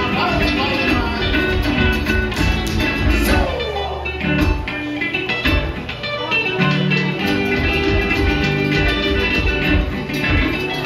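Upbeat Polynesian dance-show music with a steady drum beat and plucked strings, with a pitch sliding down about three seconds in.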